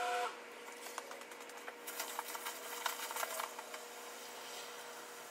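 Faint scattered light clicks and taps of workshop handling, over a faint steady hum.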